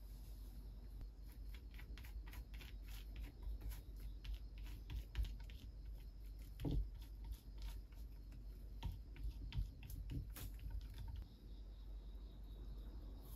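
Fast, irregular light clicks of typing on a computer keyboard, with one duller knock about halfway through.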